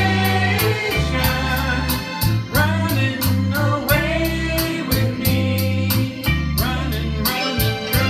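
Karaoke singing: a woman and a man singing into handheld microphones over a backing track with bass, keyboard and a steady drum beat.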